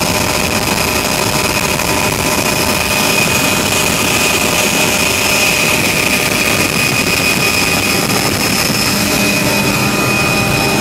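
Helicopter in flight heard from inside the cabin: steady engine and rotor noise with a constant high whine.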